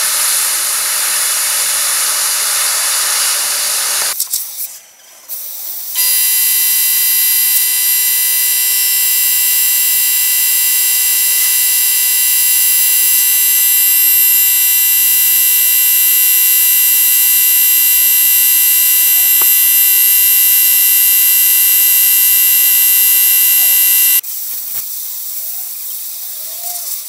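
Plasma cutter cutting steel sheet: a loud, even hiss for about four seconds, then after a short break a long, steady, high-pitched whistling tone for roughly eighteen seconds. The tone stops suddenly and a quieter hiss takes over near the end.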